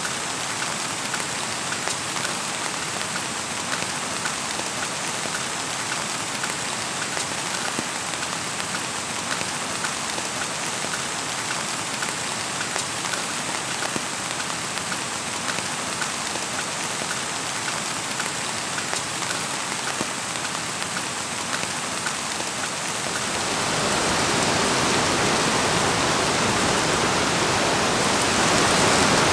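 Steady rain falling, with single drops tapping close by. About 23 seconds in, the rain becomes louder and fuller.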